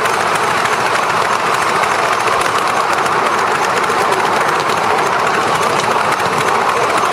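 7¼-inch gauge Black 5 model steam locomotive running with its train, heard from on board: a steady, even rushing noise of the engine working and wheels on the rails, without distinct exhaust beats.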